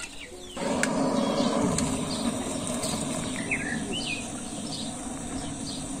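Handheld butane gas torch burning with a steady hiss, switched on about half a second in to light firewood in an outdoor stove. Small birds chirp now and then over it.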